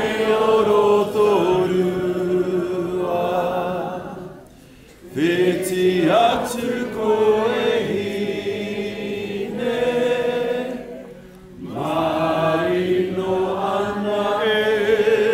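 A group of voices singing a slow Māori waiata in unison, in long held phrases with short breaks about four and eleven seconds in.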